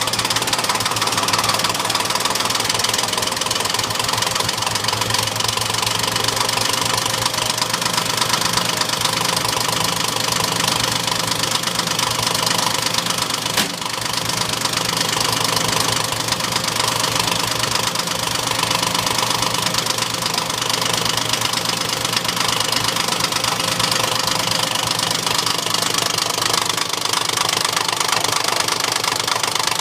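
Motorpal in-line diesel fuel injection pump running on a test bench: a steady, loud mechanical clatter made of rapid, even ticks.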